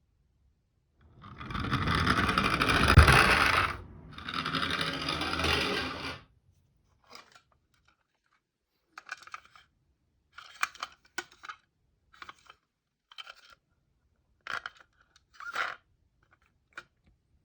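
Small toys being handled on a hard surface: two long scraping rushes near the start, then scattered light clicks and short scrapes.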